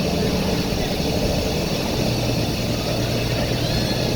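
Volvo B9TL double-decker bus's diesel engine running steadily under way, heard from inside the passenger cabin as a continuous drone. About two seconds in, a steady low hum joins it.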